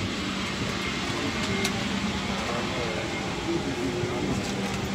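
Steady hum of a Boeing 777-300ER's cabin air conditioning during boarding, with faint passengers' voices and a few light clicks.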